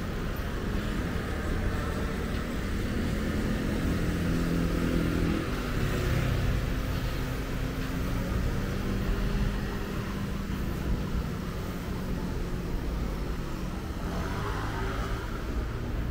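Steady road traffic: vehicle engines running and passing.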